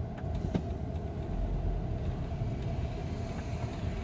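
Steady engine and road rumble heard from inside a vehicle's cab as it drives slowly, with a steady low hum.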